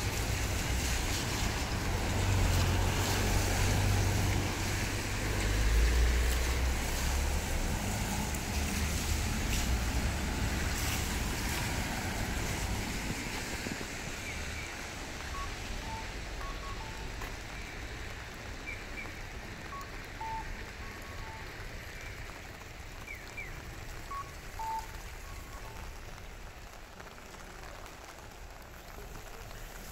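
Rain and traffic on a wet city street: a vehicle's low rumble passes and fades over the first dozen seconds, leaving a steady hiss of rain and wet road. In the second half a few faint, short electronic beeps sound.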